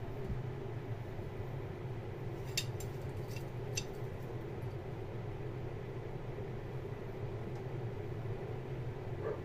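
Steady low indoor hum with a few light clicks between about two and a half and four seconds in.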